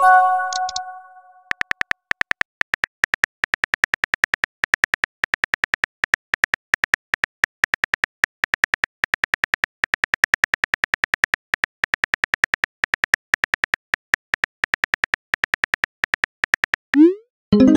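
Phone texting-app sound effects: rapid keyboard tapping clicks, several a second, as a message is typed out. A chiming message tone rings and fades in the first second and a half, and near the end a short rising swoop followed by another chime marks the message being sent.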